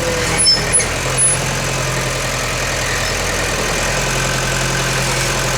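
Mitsubishi BD2-f small crawler dozer's diesel engine running steadily, with a few short clicks in the first second and a half.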